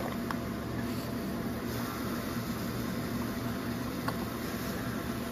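Steady electric hum of a DTF printer running, with a couple of faint clicks.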